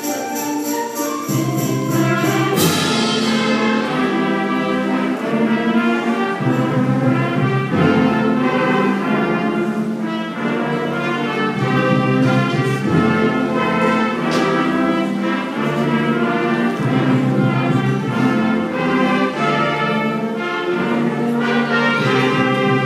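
A school concert band playing, brass carrying held chords, with a cymbal crash about two and a half seconds in.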